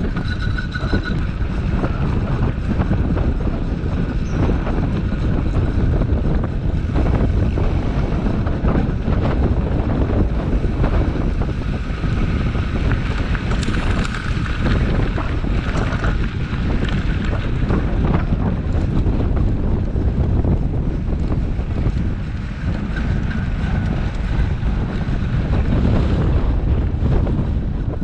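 Wind buffeting the microphone: a steady, loud rumble.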